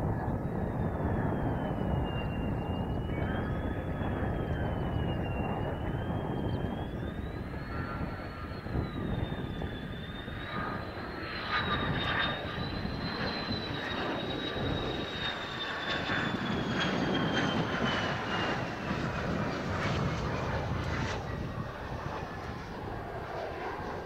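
Mitsubishi F-2's single General Electric F110 turbofan on final approach: a high engine whine that wavers up and down as thrust is worked in gusty wind, then slides steadily lower in the second half, over a continuous low rush of jet noise.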